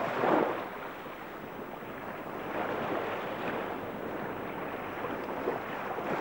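Rushing water with no pitch to it, swelling in surges about every three seconds, like small waves washing in.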